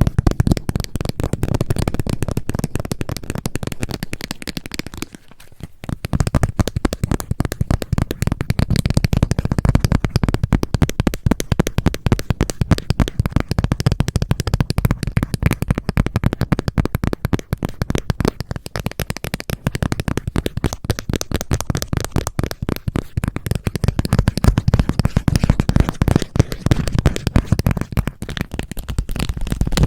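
Fingers working a glitter-filled cat paw squishy still sealed in its plastic package: a dense run of quick crinkly clicks that breaks off briefly about five seconds in.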